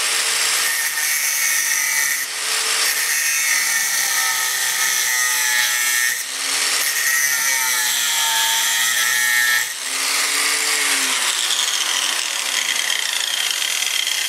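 Angle grinder with an abrasive cut-off disc running and cutting through a metal flat bar held in a vise, its motor whine wavering as the disc bites. The sound dips briefly three times, about two, six and ten seconds in. Near the end the grinder runs free, lifted off the work.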